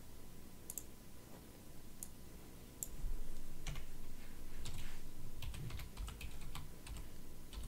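Computer keyboard typing: separate key clicks, a few scattered at first and closer together in the second half, over a low rumble that comes up about three seconds in.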